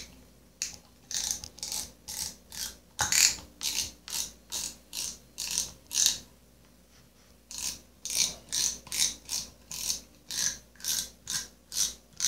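Front drag knob of a spinning reel being unscrewed by hand, its drag clicker ticking in short runs about two to three times a second, with a pause of about a second and a half midway. The drag is being backed off fully so the reel can dry.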